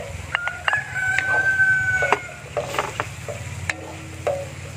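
A rooster crows once, a single long call starting about half a second in and lasting over a second and a half, over scattered clicks and scrapes of a wooden spatula stirring food in a large metal wok.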